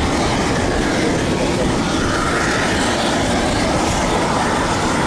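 Piston engines of vintage single-engine propeller aircraft taxiing past, a steady, noisy engine drone.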